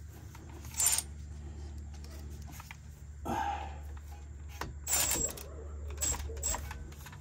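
Scattered metallic clicks and knocks from a hand ratchet and wrench tightening a car's front brake caliper bolts, the loudest click about a second in, over a steady low hum.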